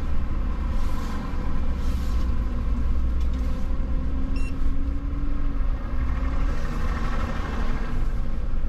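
Vehicle engine and road noise: a steady low rumble, with a faint engine hum coming in for a few seconds in the middle.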